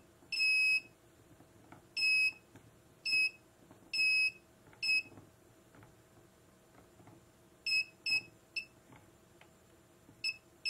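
Inductive short-circuit locator beeping as its probe is swept over a powered ECU circuit board: about ten short beeps on one high tone, irregularly spaced and of varying length, each cutting in and out sharply as the probe passes near the shorted track. The locator is set to its low frequency, where the cut-off is more abrupt.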